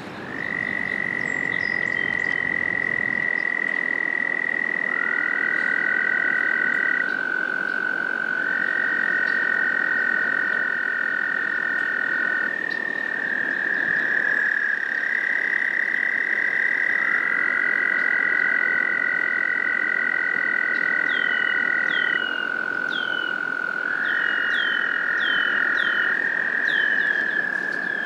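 Several American toads trilling in chorus: long, steady, high trills lasting several seconds each, overlapping at slightly different pitches. Near the end, a run of short, high, falling chirps joins in.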